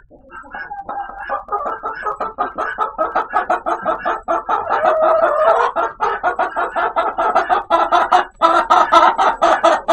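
Chicken calling in a fast, continuous run of short clucks, several a second. The run grows louder over the first few seconds, breaks off briefly near the end, then starts again.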